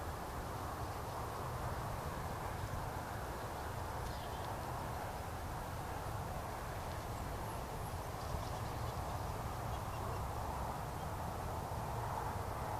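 Steady open-air background noise: a constant low rumble under an even hiss, with a few faint high chirps from small birds.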